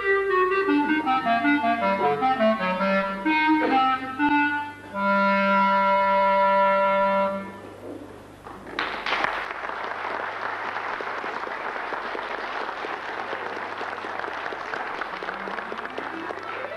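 Unaccompanied clarinet playing fast runs that fall in pitch, ending on a long held low note about halfway through. After a short pause an audience applauds.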